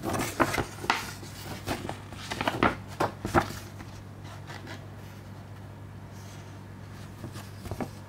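Paper and cardboard being handled: a quick string of crisp rustles and taps over the first few seconds as a paper insert and a disc box are moved, then a few faint rustles near the end, over a steady low hum.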